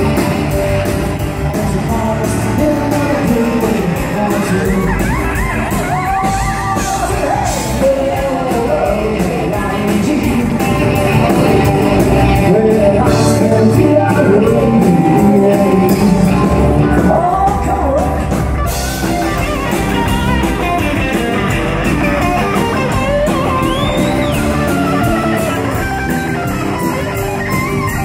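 Live country-rock band playing: a man sings lead into a microphone over electric guitar, bass guitar and drums.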